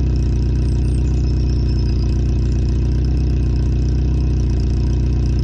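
VW Polo 86C's 45 PS AAU 1.05-litre four-cylinder petrol engine idling steadily with a pronounced clatter.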